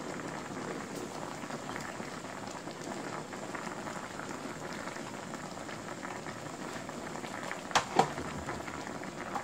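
Braising liquid simmering and crackling steadily in a wok under a layer of vegetables, with two sharp clicks about eight seconds in.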